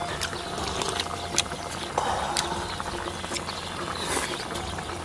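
Eating noises: chewing and smacking of hot stew with irregular clicks of chopsticks against a bowl, over a steady low hum.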